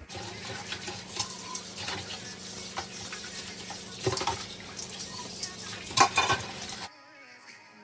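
Kitchen faucet running into a stainless steel sink while bowls and a cup are rinsed and scrubbed, with dishes knocking together, loudest about four seconds in and again about six seconds in. The water sound cuts off suddenly near the end.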